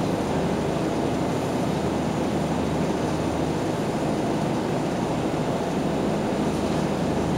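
Small tour boat under way, its engine running with a steady low drone over the constant rush of water along the hull, heard from inside the cabin.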